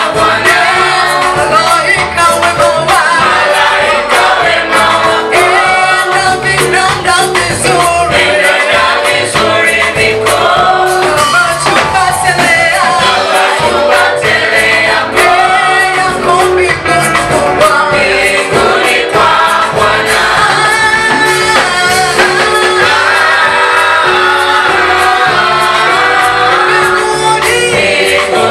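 A choir singing a gospel song in Swahili, several voices together, over a steady accompaniment.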